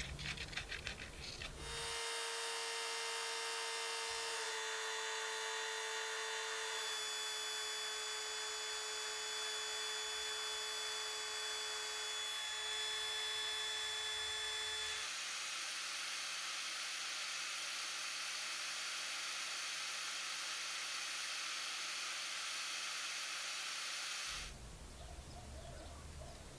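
A few light clicks, then a handheld rotary tool with a cone-shaped grinding bit running with a steady high whine, grinding EVA foam into shape. Its tone shifts a few times, and it stops abruptly near the end.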